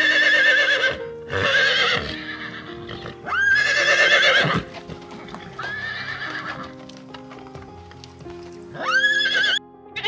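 Horse neighing, five wavering whinnies one after another, over background music with sustained notes.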